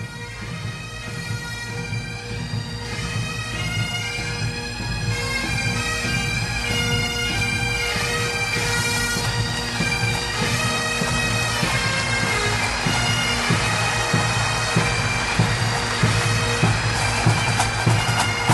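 Bagpipe music: a tune played over steady held drones, fading in over the first few seconds.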